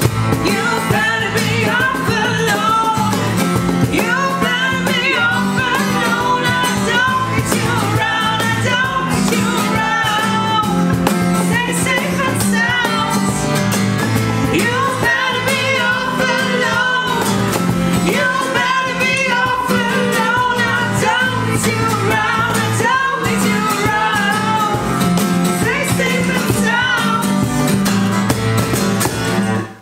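Unplugged band playing: a woman singing over a strummed acoustic guitar and a cajon beat.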